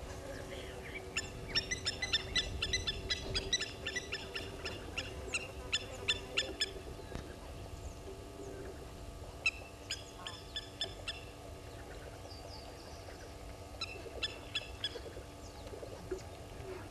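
Blacksmith lapwings calling: rapid series of sharp metallic 'tink' notes, in three bouts, over a faint steady hum.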